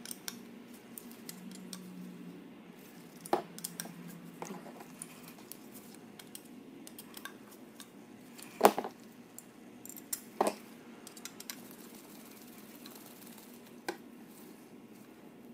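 Hex driver turning small screws into the standoffs of a carbon-fibre drone frame: quiet handling with a handful of sharp clicks and taps of metal tool, screws and frame, the loudest a little past halfway.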